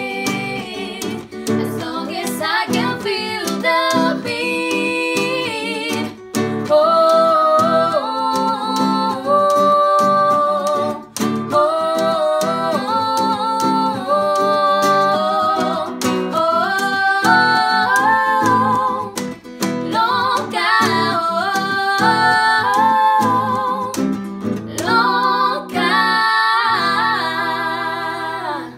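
Two women singing together in harmony, accompanied by a strummed acoustic guitar.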